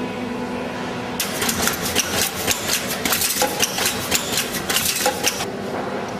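Automatic horizontal-blind machine running a cycle: a rapid, dense clatter of sharp mechanical clicks and knocks for about four seconds, starting a second in, over a steady motor hum.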